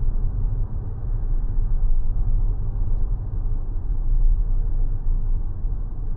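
2026 Mazda 6e electric sedan driving, a steady low road and tyre rumble with no engine note.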